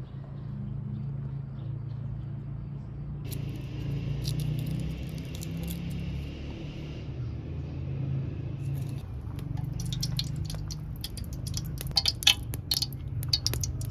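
A steady low rumble. A hiss comes in about three seconds in and lasts a few seconds, and in the last few seconds there is a run of sharp clicks and clinks of kitchen utensils.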